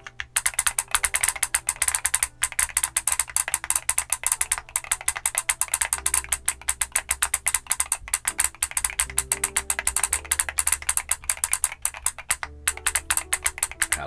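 Rapid typing on an MMStudio Class80 R2 keyboard with Gateron EF Grayish tactile switches. Its built-in typing solenoid fires a sharp mechanical clack with every keystroke, with a few short pauses.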